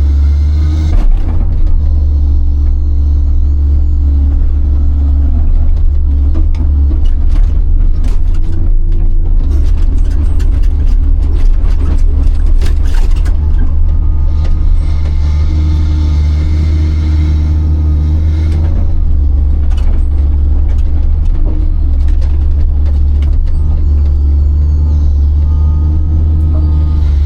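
Large excavator's diesel engine running steadily, with a run of knocks and scrapes from about six to thirteen seconds in as the machine works snow and ice.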